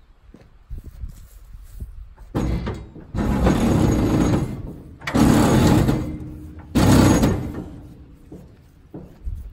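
A rope hauled hard on a New Holland haybine: three loud rasping pulls about a second long each, the first starting a little past two seconds in, with quieter rustling between them.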